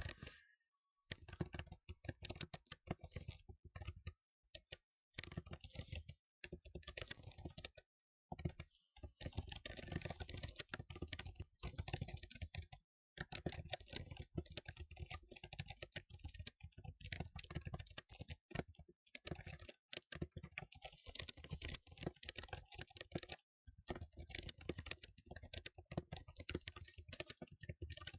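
Fast typing on a computer keyboard: dense runs of key clicks lasting a few seconds each, broken by several short pauses.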